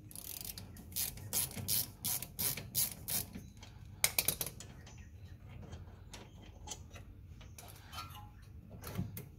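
Ratchet handle clicking in quick repeated strokes, about three or four a second, as a 14 mm socket undoes the lower bolt of a rear brake caliper; a short clatter of metal clicks comes about four seconds in, then a few faint ticks.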